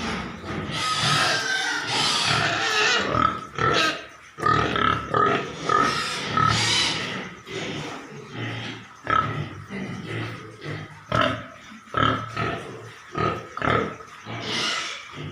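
Pigs grunting and squealing in quick, irregular bursts, with louder, shriller squeals about a second in and again around six seconds.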